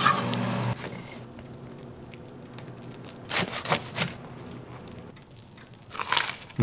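Butter sizzling briefly in the pan at the start, then a knife crunching through a crisp-toasted grilled cheese sandwich and its lacy fried-cheese crust in a few short crackling cuts, and a crunchy bite near the end.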